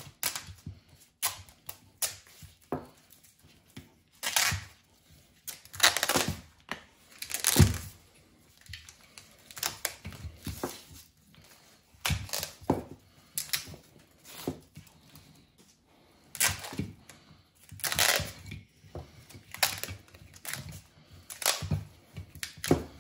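Tape wrap being peeled and torn off a factory electric-fan wiring harness by hand: irregular ripping and crackling strokes, some short and some drawn out for up to a second, with scattered clicks from handling the wires.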